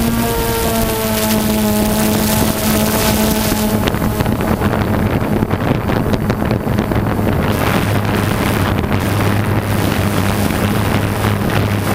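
Motor of a remote-control aircraft carrying the camera, running steadily with wind rushing over the microphone. Its pitch sinks a little over the first few seconds, then a lower hum takes over.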